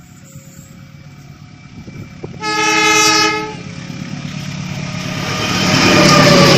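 Diesel locomotive horn sounds one blast of about a second, then the rumble and rail noise of an approaching train builds quickly and is loud by the end.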